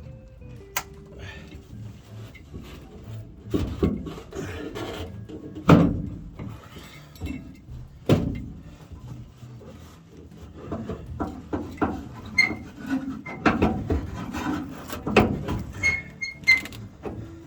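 Irregular knocks and clunks, with lighter clicks between them, from parts and hand tools being handled during work on a pickup's fuel tank and pump. Two sharp knocks stand out about six and eight seconds in, and they come faster toward the end.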